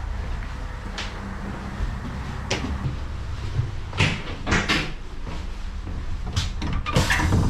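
A passenger train carriage on the move: a steady low rumble with irregular sharp knocks and clatters, coming more often in the second half.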